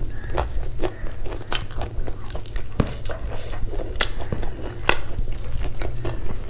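Close-miked mukbang eating sounds: a mouthful of rice and fried food being chewed with irregular wet clicks and smacks. A low steady hum runs underneath.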